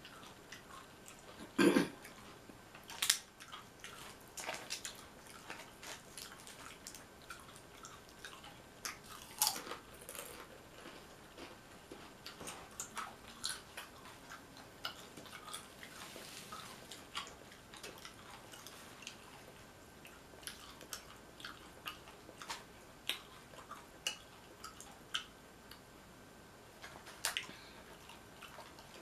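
Close-miked eating of nachos: tortilla chips crunched and chewed, with many small, irregular mouth clicks and crackles. The sharpest crunches come near the start and again about ten seconds in.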